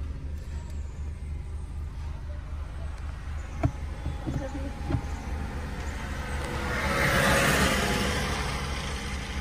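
Steady low engine and road rumble heard from inside a car on a wet road, with two sharp clicks a few seconds in. About seven seconds in, an oncoming vehicle swells and fades as it passes, its tyres hissing on the wet road.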